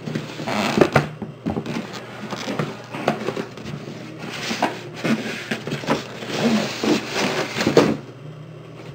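Cardboard packaging being handled and opened: irregular rustling and scraping of cardboard flaps and boxes, with a few light knocks.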